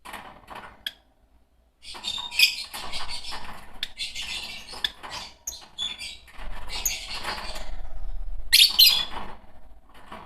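Fischer's lovebirds chirping and chattering: a few short calls at first, then a busy run of high chirps from about two seconds in, with the loudest shrill calls near the end.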